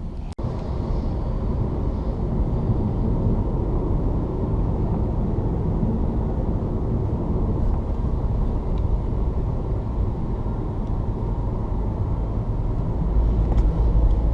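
Steady road and engine noise heard inside a moving car's cabin: a low rumble, which grows heavier near the end.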